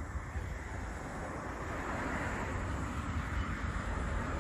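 Distant jet noise from a Blue Impulse Kawasaki T-4, a rushing sound that grows steadily louder, with wind buffeting the microphone.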